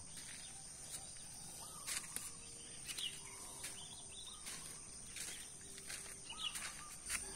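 Outdoor ambience: a steady high-pitched insect drone, with a few short bird chirps and scattered faint clicks.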